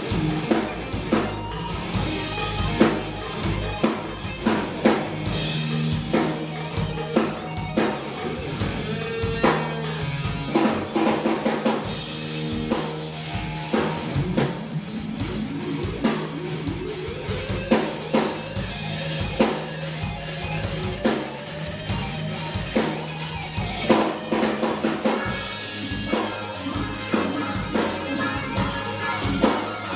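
Live rock band playing an instrumental passage on drum kit and electric guitars, with a steady run of drum hits under held low notes. The cymbals come in heavier about halfway through.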